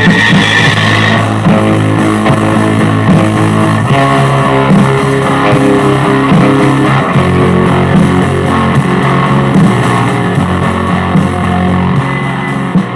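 Indie pop music with strummed guitar and bass guitar, no vocals.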